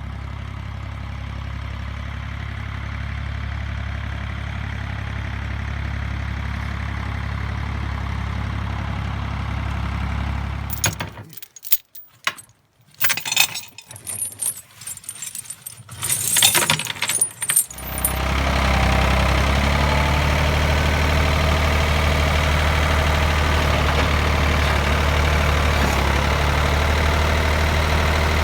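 A small tractor's engine running steadily at a low hum. About eleven seconds in it gives way to several seconds of scattered clicks and rattles, then comes back louder and steady.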